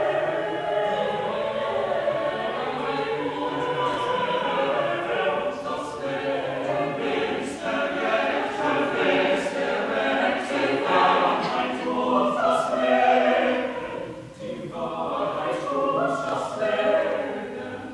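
Mixed chamber choir of men's and women's voices singing sustained phrases under a conductor, with a short break between phrases about fourteen seconds in.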